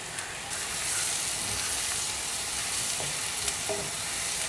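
Chopped onions and shallots sizzling in hot oil in a stainless steel pan. The sizzle grows louder about half a second in, with a couple of light taps as the onions are stirred with a wooden spoon.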